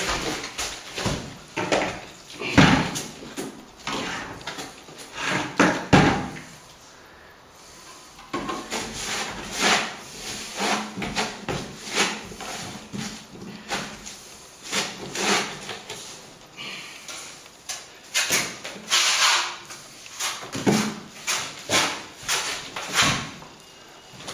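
A plastering trowel scraping and tapping in short, irregular strokes as sand-and-plaster render is worked and spread into an electrical chase in the wall, with a brief pause about six seconds in.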